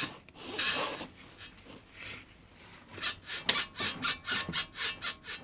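Lada Granta's left front suspension squeaking as the car rocks: a worn, dry ball joint, which the owner confirms. A couple of single squeaks come first, then from about halfway a quick run of squeaks at about four a second.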